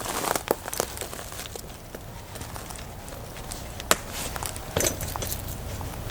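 A few sharp clicks and knocks at irregular intervals over a faint, low, steady hum.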